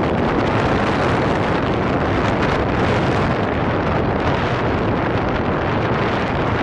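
Wind buffeting the camera's microphone: a steady, loud rush of noise.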